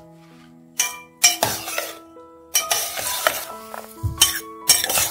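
A steel spoon scraping and clinking against a stainless steel bowl in several bouts of stirring a crumbly flattened-rice mix, over background music with held notes.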